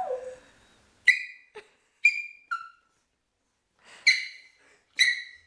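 Small terrier giving short, high-pitched yelps, five in all, with a pause of over a second between the third and fourth. The yelps are the dog's protest at having its paws towel-dried.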